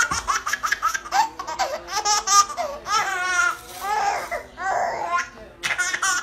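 Baby laughing hard in quick, repeated bursts.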